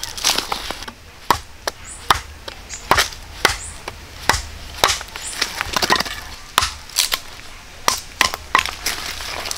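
Irregular, sharp knocks and cracks of wood being chopped, about one to two a second.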